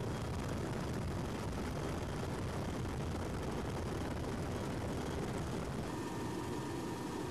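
Helicopter in flight: a steady, dense rumble of rotor and turbine noise. About six seconds in the sound changes and a steady whine comes in over the rumble.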